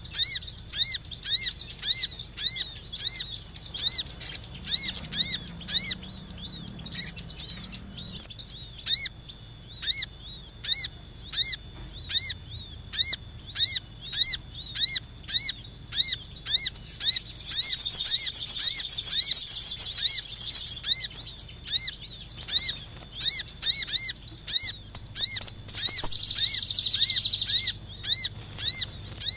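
Small songbirds calling, in a bird-lure recording: a short rising-and-falling whistled note repeated evenly about twice a second, joined twice by a longer, higher buzzy trill.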